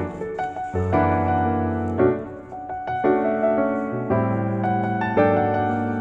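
Piano music: slow, held chords, with new notes struck about once a second.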